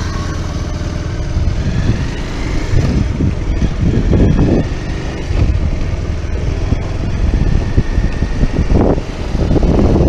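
Bajaj Pulsar 150 motorcycle's single-cylinder engine running steadily while riding, heard from the rider's seat, with irregular louder rumbles about four seconds in and near the end.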